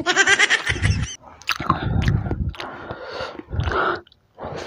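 Close-miked eating sounds of a person chewing fried chicken and rice, with wet mouth noises, and a short voiced sound in the first second.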